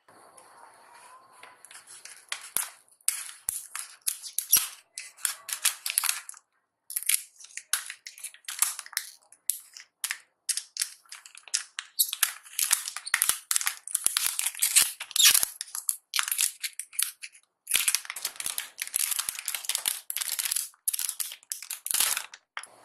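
Plastic packaging crinkling and rustling as it is handled, in irregular bursts of varying length with a few short pauses.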